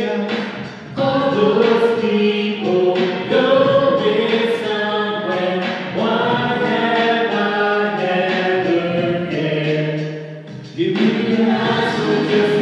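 Mixed group of men's and women's voices singing a song together in harmony, with brief pauses between phrases about a second in and near the end.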